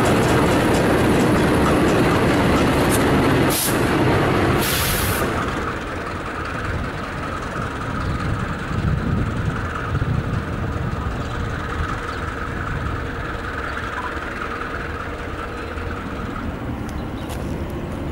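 South African Class 35 diesel-electric locomotives (GE U15C) running. The first few seconds are a loud, close pass of the locomotives' engines and wheels with a couple of sharp knocks. About five seconds in, it drops to a quieter, steady locomotive drone as a pair of them approaches.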